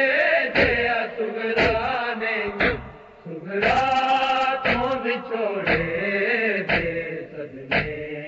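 Male group chanting a Punjabi noha without instruments, with a brief pause between lines about three seconds in. Sharp, even strikes about once a second keep the beat: matam, hands beating on chests.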